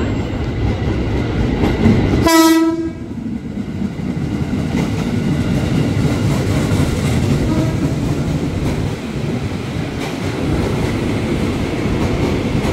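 Ex-JR 205 series electric commuter train rolling alongside the platform, with a steady rumble of wheels and running gear. A single short horn toot sounds about two seconds in.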